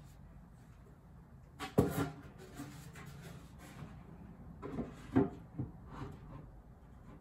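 Knocks and light thumps of wooden shelf boards being handled and set onto metal wall brackets: one sharp knock about two seconds in, then a few softer ones near the end.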